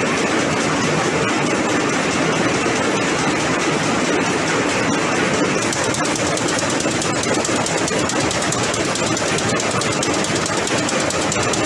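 A jacquard machine on a high-speed rapier loom running: a loud, steady, fast mechanical clatter with no let-up.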